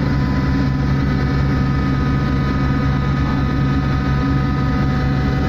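Survey ship's engine machinery running: a steady, loud low drone with several constant higher whines over it.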